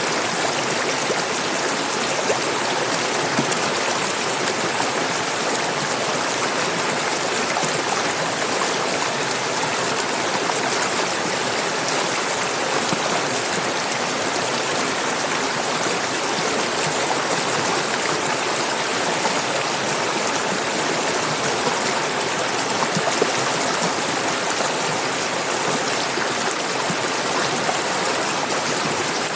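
Clear mountain river flowing over stones, a steady rush of water without pause.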